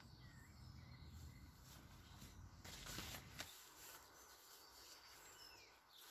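Quiet outdoor lakeside ambience with a few faint bird chirps. About three seconds in there is a short rustle of something being handled.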